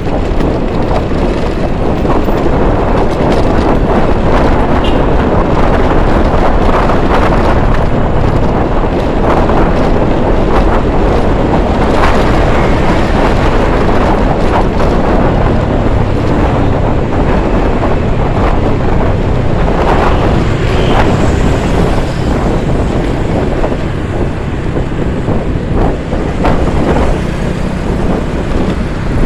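Wind rushing over the microphone while riding a Honda BeAT scooter, with the scooter's engine and passing traffic running steadily underneath.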